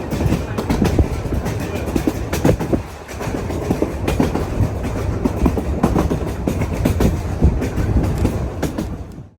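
The old wooden Sóller train running on the rails, its wheels clacking over rail joints and the carriage rattling over a steady low rumble. It cuts off suddenly near the end.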